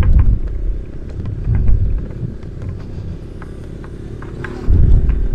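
Honda ADV 160 scooter's single-cylinder engine running at low speed as it rolls over a sandy dirt track. A low rumble swells about one and a half seconds in and again near the end.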